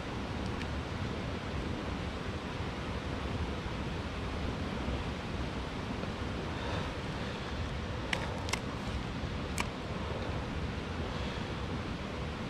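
Steady rush of flowing river water, with a few short sharp clicks about eight to ten seconds in.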